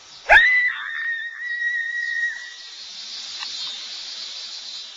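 A high whistle tone that swoops up sharply about a third of a second in, then holds one steady pitch for about two seconds before stopping.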